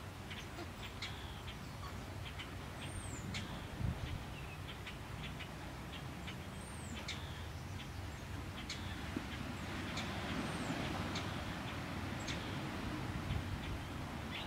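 Small birds chirping in short, high calls, with a few higher arching notes scattered throughout, over a steady low rumble.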